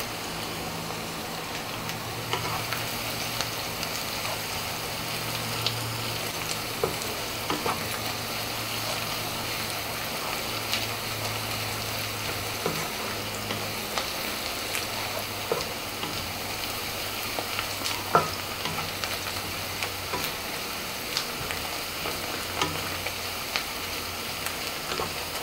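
Sliced onions sizzling in hot oil in a non-stick frying pan as they are stirred with a wooden spatula, with scattered light scrapes and taps of the spatula against the pan. The onions are at the softening stage, just starting to turn light brown.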